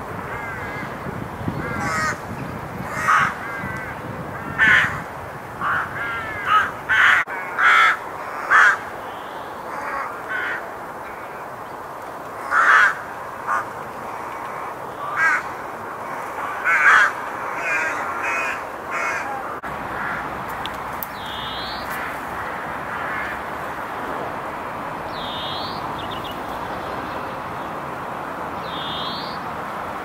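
Rooks cawing: many short calls at uneven intervals over the first two-thirds, then only a steady background hush with a few short high chirps in the last third.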